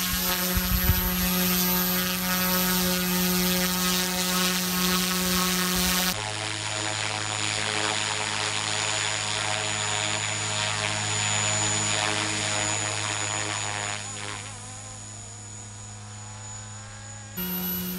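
OMPHOBBY M2 electric RC helicopter in flight, its motor and rotors making a steady whine. The pitch steps down abruptly about six seconds in and back up near the end, and the sound grows fainter about fourteen seconds in.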